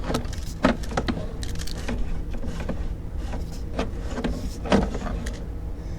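Sewer inspection camera being pushed through a scaled cast-iron drain pipe: irregular knocks and scrapes as the camera head moves along the pipe, over a steady low hum.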